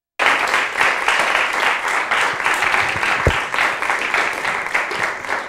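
An audience applauding, lots of hands clapping together; it cuts in abruptly right after a moment of dead silence.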